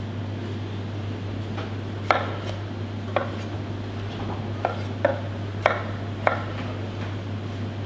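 Chef's knife cutting through tomatoes onto a plastic cutting board: about six sharp, irregularly spaced knocks as the blade strikes the board, over a steady low hum.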